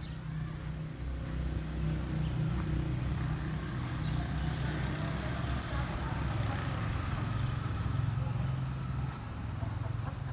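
A motor vehicle engine running close by: a steady low hum that swells in the first couple of seconds, settles a little lower in pitch, and dips about nine seconds in.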